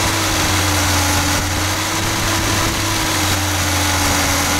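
VAZ 2121 (Lada Niva) four-cylinder engine running at a raised, steady speed on its Solex carburetor, with the choke flap held shut to check the cold-start device. The engine holds its revs without stumbling, a sign of a correctly working starting device.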